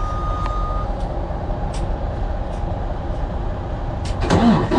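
Diesel engine of a Freightliner semi truck being jump-started from a jump pack on low batteries, then running with a steady low rumble. A single steady warning-buzzer tone sounds at the start and cuts off under a second in. A louder burst comes near the end.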